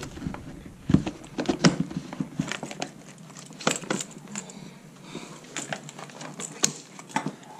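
Irregular sharp plastic clicks, knocks and rustling from a Scott SCBA second-stage regulator being slid into an AV-3000 face mask's port and turned to lock, with the click of the regulator's latch button catching.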